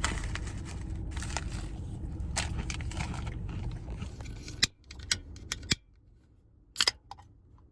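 Handling of a bag of Planters Heat peanuts: crinkling packaging and crunching, with a string of sharp clicks and crackles. A low steady hum under the first half drops away a little past halfway.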